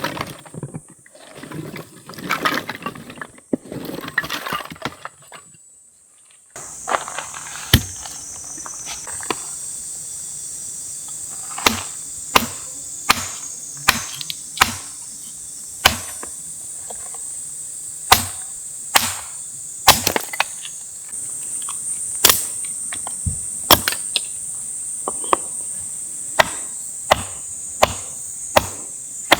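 Steady high-pitched insect chorus, with scraping and rustling for the first six seconds or so, then sharp irregular clicks roughly every second from about seven seconds in.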